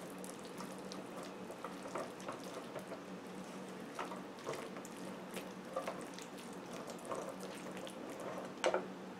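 Silicone spatula stirring a thick, creamy spinach and mushroom mixture in a frying pan: soft wet squelches and light scrapes against the pan. A steady low hum runs underneath, and there is one sharper knock near the end.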